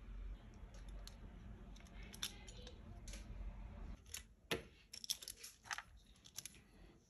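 Faint clicks and taps of a 1:64 Hot Wheels diecast toy car body and its plastic base being handled and pressed on a tabletop. The clicks grow sharper and more frequent in the second half.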